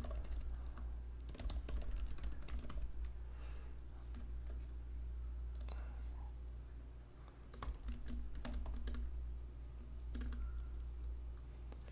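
Typing on a computer keyboard: runs of quick key clicks with pauses between them.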